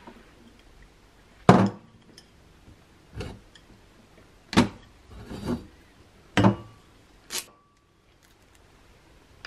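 Kitchenware clatter as cooked noodles are drained and tipped out: a stainless mesh strainer knocking and clinking against a saucepan and a ceramic bowl. About six sharp knocks come a second or so apart, the loudest about a second and a half in.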